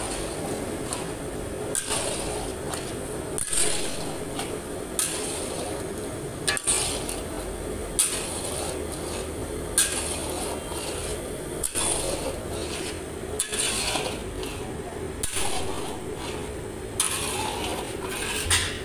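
Long metal spatula scraping and stirring crumbly milk curd and sugar in a large iron karahi, a scrape about every one and a half to two seconds over a steady hum.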